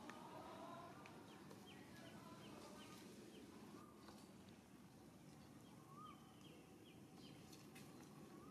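Faint outdoor ambience with a steady low background hum and birds chirping: two runs of short, quick high notes, a few a second, with a brief wavering call right at the start.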